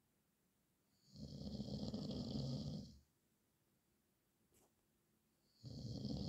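A man snoring in slow, regular breaths: one snore of about two seconds starting about a second in, then a quiet pause with a faint click, and the next snore beginning near the end.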